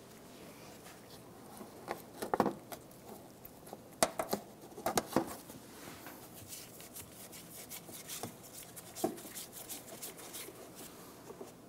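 Plastic push-pin retainers being pressed into a plastic wheel-well fender liner: a few sharp plastic clicks about two and four to five seconds in, then lighter ticks and rustling of plastic being handled.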